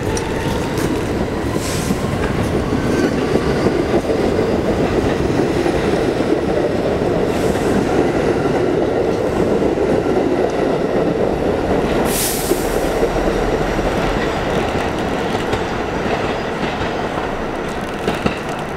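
New York City Subway train of R46 cars rolling past along the platform, steel wheels clattering over the rail joints with some wheel squeal. There is a brief high hiss about twelve seconds in.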